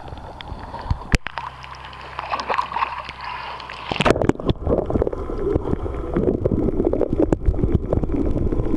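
Sea water lapping against a handheld camera held at the surface, with a few sharp knocks. About four seconds in, the camera dips under, and the sound turns to a louder, muffled underwater rush full of small clicks.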